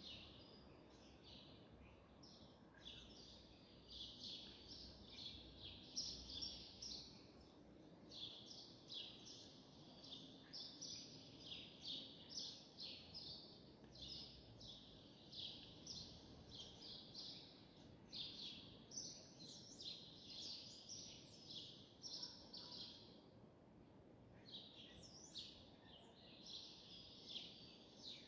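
Faint, continuous chirping of small birds, a dense chatter of quick high chirps in clusters that keeps going throughout, over a low background hiss.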